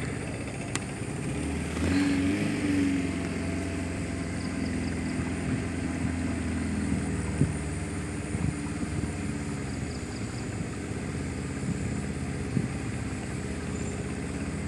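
Outboard motor of a wooden river longboat running steadily under way, its note picking up about two seconds in, with water rushing along the hull.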